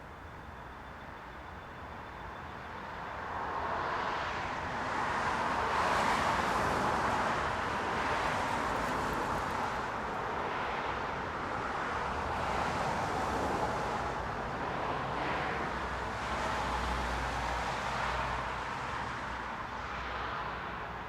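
Steady stream of cars driving past on a busy main road, tyre and engine noise rising and falling as vehicles go by one after another. The traffic swells about four seconds in, and a deeper rumble of a heavier vehicle passes near the end.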